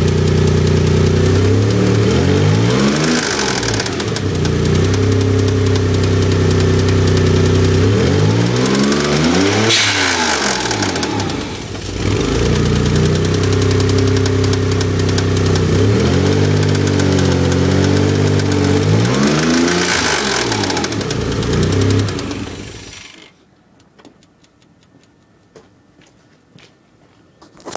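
Engine with newly installed lifters running with a noise the owner calls bad. It is revved up and back down several times, then switched off near the end.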